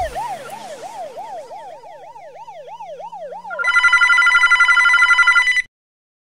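A police siren wailing rapidly up and down and fading away, then an old-fashioned telephone bell ringing loudly for about two seconds before cutting off suddenly.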